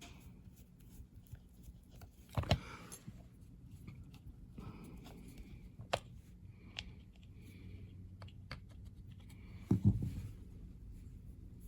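Small clicks and scrapes of a Craftsman hand drill's aluminium casing and parts being handled and taken apart, with two louder knocks, one about two seconds in and one near the end.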